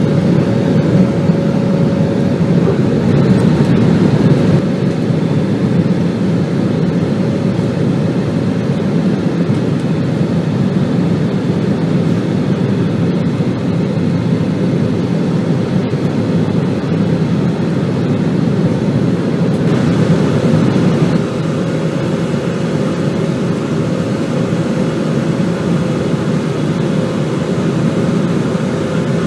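Steady drone of an Airbus A320's engines and airflow heard inside the passenger cabin, with a faint steady hum on top. The level drops slightly about two-thirds of the way through.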